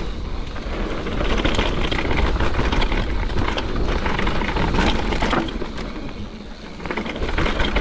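Mountain bike descending a dirt trail: tyres rumbling over packed dirt and roots, with rapid clicks and rattles from the bike over bumps, and wind buffeting the microphone.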